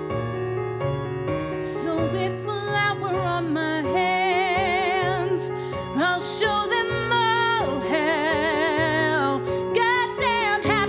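A woman singing a musical-theatre ballad over a recorded piano backing track; her voice comes in about two seconds in and holds several long notes with vibrato.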